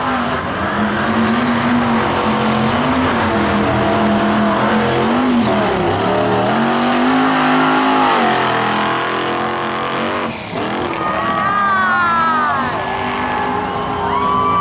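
Off-road vehicle engine revving, its pitch rising and falling again and again as the throttle is worked, with a brief drop about ten seconds in.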